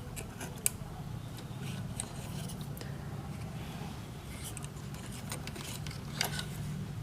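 Light clicks and scrapes of a small zener diode being handled and fitted into an amplifier circuit board, with a sharper click about six seconds in, over a steady low hum.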